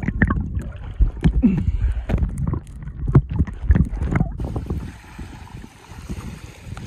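Splashing and muffled underwater sloshing, with knocks, from a phone in a bag as it dips in and out of the water. About four seconds in this gives way to a steady hiss of wind on the microphone and small waves lapping against the shore rock.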